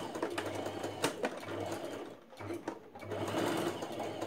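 Domestic electric sewing machine stitching fabric, running in spurts: it stops briefly about two seconds in, gives a short burst, then runs steadily again.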